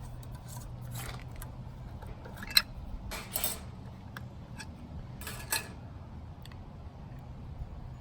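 A metal utensil clinking and scraping against a glass jelly jar and plate as jelly is scooped out and spread on biscuits: a few scattered clicks and short scrapes, the sharpest about two and a half seconds in, over a steady low hum.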